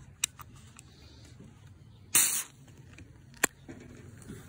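A Heineken beer can being opened by its ring-pull tab. There is a faint click, then a short, sharp hiss of escaping gas about two seconds in, the loudest moment, and a sharp click about a second later.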